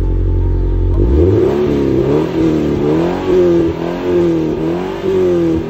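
Subaru BRZ's flat-four boxer engine heard at the tailpipes of its Trust GReddy aftermarket exhaust, idling and then, about a second in, revved in a run of quick blips, roughly one a second, each rising and dropping back.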